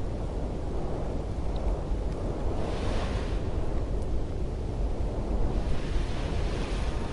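A steady low rushing rumble of wind-like ambience, swelling with a brief hiss about two and a half seconds in and a longer one near the end.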